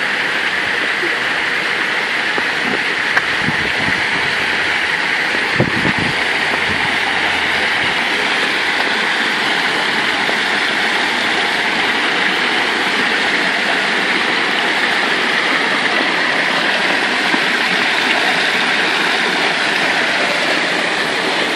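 Water running steadily over the small stepped cascades of a stone-lined water channel, an even splashing flow.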